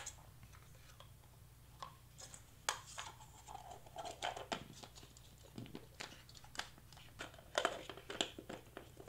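Clear plastic ornament bauble halves handled and pressed together: scattered light clicks and crinkly rustles of thin plastic.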